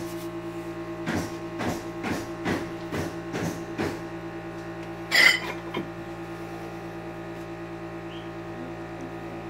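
Light knocks, about two a second, as 4-inch ceramic floor tiles are tapped and pressed by hand into thinset; they stop about four seconds in, and a single louder, sharper clack follows about a second later. A steady hum runs underneath.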